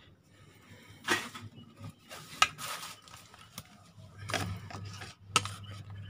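Scattered light clicks, knocks and clinks of small parts and wiring being handled, with one sharper click near the middle. A low steady hum comes in about four seconds in.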